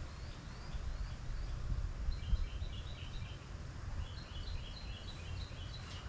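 A bird chirping in quick runs of short, high notes that grow clearer about two seconds in, over a low, steady rumble.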